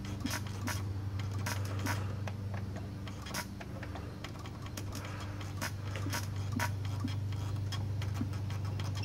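Plastic power button of a dead CRT television clicking irregularly as it is pressed again and again, with no response from the set, over a steady low hum.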